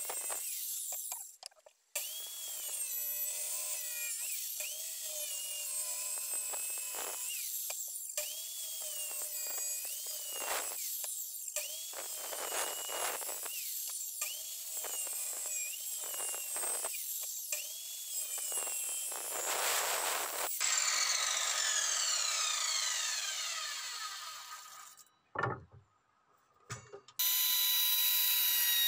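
Bosch circular saw making a series of short cuts around the edge of a round wooden board, its motor pitch dipping under each cut and recovering. About twenty seconds in the trigger is released and the blade winds down with a long falling whine. Near the end a hand router starts and runs at a steady high pitch.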